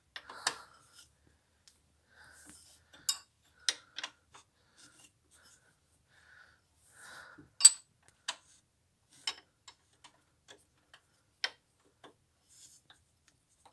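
Scattered sharp metallic clicks and taps at uneven intervals, the loudest about eight seconds in: hand tools working on the belt tensioner's hex bolt as it is tightened back up.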